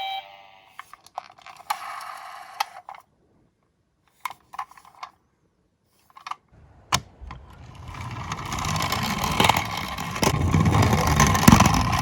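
A few light clicks and clacks of small die-cast toy cars being handled, then from about seven seconds in the rolling rattle and scrape of Tomica minicars running down a toy slope, growing louder as they go.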